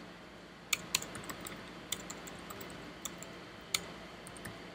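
Computer keyboard keys tapped about six times at uneven intervals, as text is deleted and typed in a code editor, over a faint steady hum.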